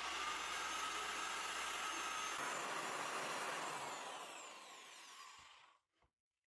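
Ryobi biscuit joiner motor running at full speed while cutting slots in the edge of a wooden panel, a steady whine. Near the end its pitch falls as the motor spins down, and it fades out.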